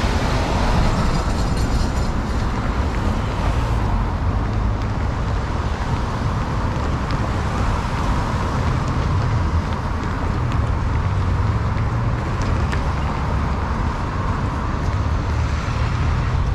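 Road traffic passing close by: a semi-truck rolls past in the first few seconds, then a steady stream of cars, with continuous tyre and engine noise and a low rumble.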